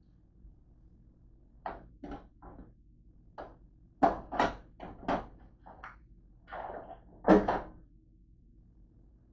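A run of irregular knocks and clunks, about a dozen over some six seconds, as things are handled off camera; the two loudest come about four seconds in and near the end.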